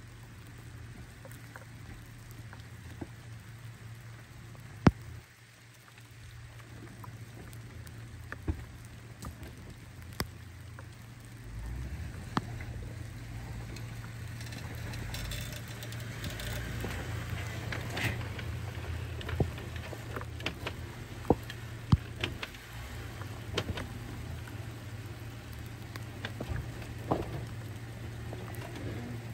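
Jeep Wrangler crawling in four-wheel-drive low over a rocky dirt trail: its engine hums low and steady and grows louder as it draws near from about halfway through. Gravel crunches and stones click and crack under the tyres, with one loud crack about five seconds in.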